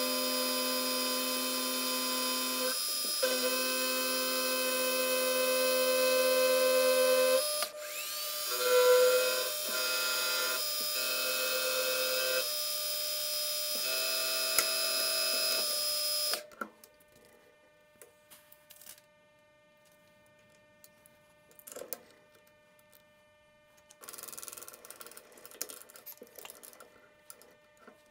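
Milling machine spindle running while an end mill cuts aluminium: a steady multi-tone whine whose pitch shifts a few times. About sixteen seconds in it stops abruptly, leaving a faint hum with a few light clicks and scrapes.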